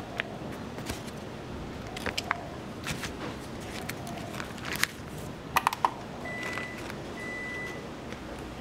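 Small kitchen handling sounds during bread-making: scattered light clicks and taps over a steady low hiss, with a quick cluster of clicks about five and a half seconds in and two short faint beeps near the end.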